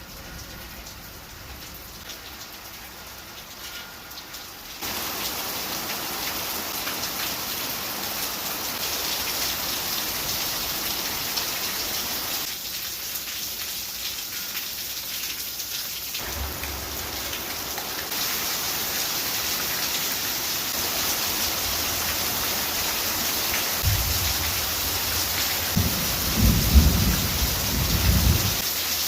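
Heavy rain falling steadily during a thunderstorm, lighter at first and then suddenly louder about five seconds in. A low rumble of thunder rolls in near the end.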